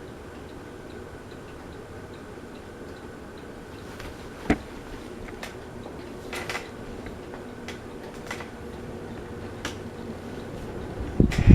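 Harbor Breeze Aristocrat ceiling fan running on high with a steady hum and a faint, even ticking, a little over two ticks a second. From about four seconds in there are several sharper clicks, and just before the end a loud buffeting rush of air sets in.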